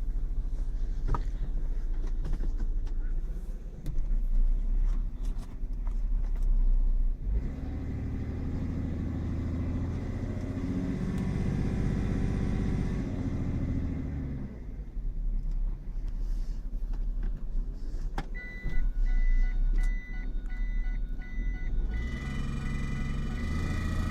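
Car engine running with a knock, which the owner puts down to the flywheel. In the middle the engine is revved up and let back down. A high electronic beeping comes in near the end.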